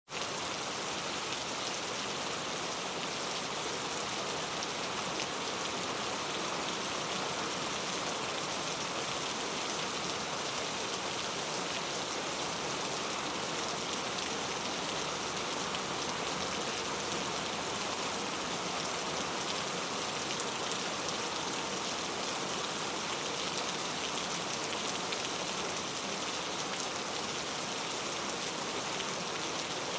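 Steady rain falling into a puddle, a dense patter of drops hitting water.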